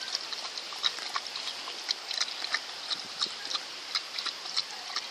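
A six-month-old American Bird Dog lapping water, quick wet laps about three a second.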